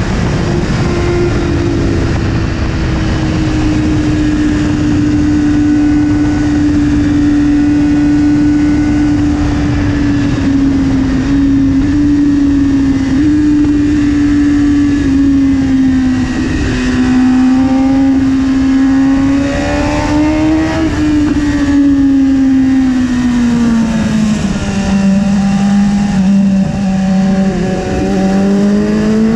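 BMW S1000RR inline-four engine running at high revs under heavy wind rush. The engine note sinks slowly as the bike slows, drops lower a few seconds before the end, then climbs again as it speeds up.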